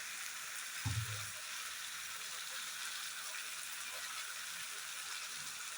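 Marinated chicken and spice paste sizzling in hot oil in a pan, a steady hiss, with a brief low thud about a second in.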